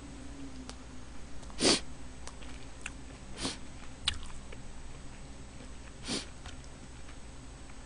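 Close-miked eating at a table: three short sniffs, with faint clicks of a metal spoon against a stew pot and rice bowl between them.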